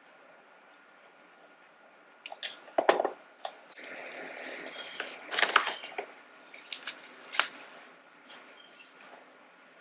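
Small clicks and knocks of hand tools and plastic motorcycle parts being handled while a screw is refitted. There is a rustling scrape about four seconds in that ends in a quick cluster of louder clicks, and a few more clicks follow.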